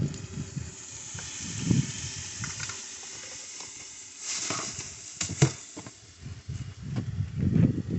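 Food sizzling in a pan on a gas camp stove, with a louder burst of hissing about four seconds in and a few sharp clicks just after.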